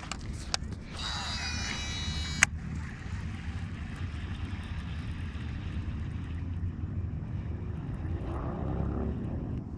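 Baitcasting reel cast: the spool spins as the line pays out, a high whirring that ends in a sharp click about two and a half seconds in. A steady low rumble runs underneath and carries on after it.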